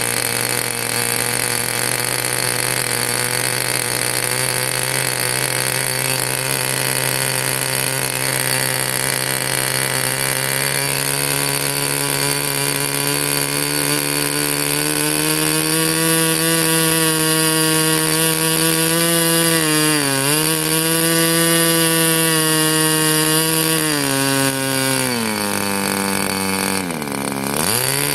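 O.S. Max FP .40 two-stroke glow engine on a model airplane running at high speed. Its pitch climbs about a third of the way in, dips briefly twice, then sags sharply near the end before picking back up.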